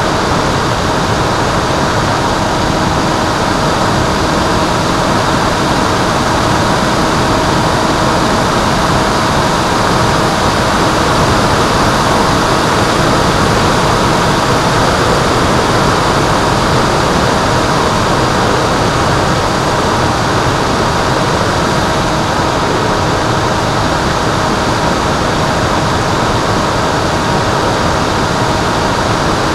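A Finwing Penguin RC plane's electric pusher motor and propeller running steadily in flight, heard through its onboard camera with heavy wind rush over the microphone. A few constant tones sit in the steady noise.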